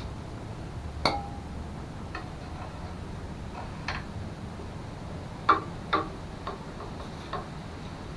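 Metal parts and hand tools being handled: a series of sharp clicks and clinks, one about a second in with a short metallic ring, the loudest two close together about five and a half and six seconds in.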